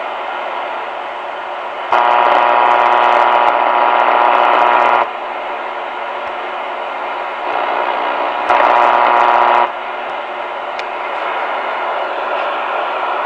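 Royce 639 CB radio's speaker on AM putting out a steady buzzy hiss of digital power-line communication (PLC) interference. The interference jumps sharply louder about two seconds in for about three seconds, and again briefly near the end, then drops back.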